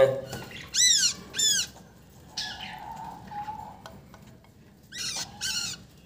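Hungry nestling birds begging: four short, high-pitched chirps, each rising then falling in pitch, in two pairs, one pair about a second in and the other near the end.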